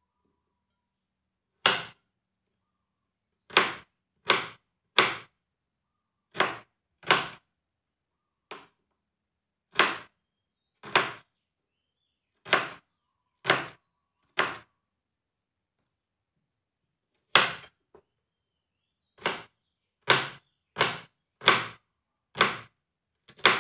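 Kitchen knife chopping red onions on a plastic cutting board: about nineteen single sharp knocks of the blade on the board, spaced irregularly about half a second to three seconds apart.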